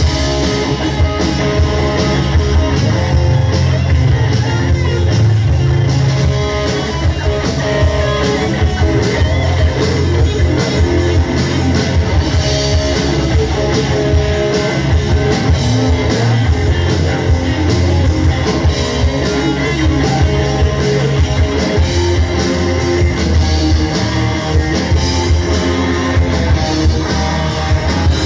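Live hard-rock band playing loud through amplifiers: distorted electric guitars to the fore, over bass guitar and a drum kit.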